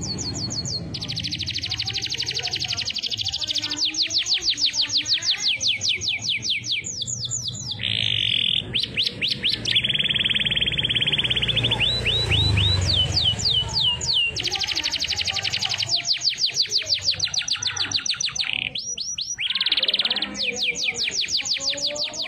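Domestic canary singing a long, continuous song of fast trills and rapid sweeping notes, switching phrase every second or two.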